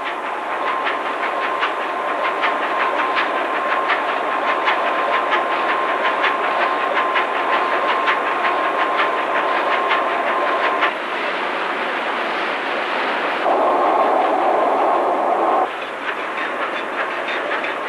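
Large Burmeister & Wain marine diesel engine running up toward full speed, with a fast, even mechanical clatter and a steady whine over it until about two-thirds through. Near the end a louder hiss-like noise comes in for about two seconds.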